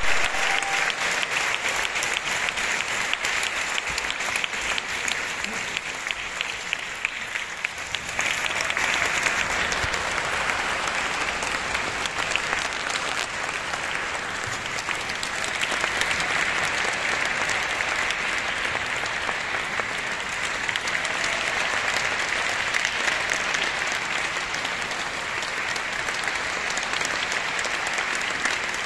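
Audience applauding steadily, growing louder about eight seconds in.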